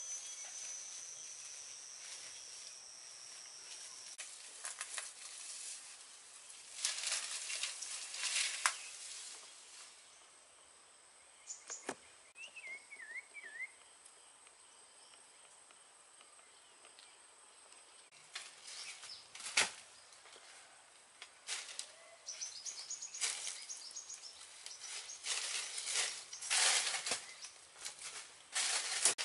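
Irregular rustling and crunching of dry banana leaves and undergrowth, dense near the end, with one sharp snap about twelve seconds in. Insects trill steadily at a high pitch in the first few seconds.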